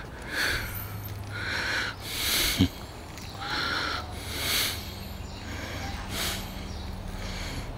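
A person breathing hard close to the microphone, in hissy breaths about one a second, with a single sharp click about two and a half seconds in.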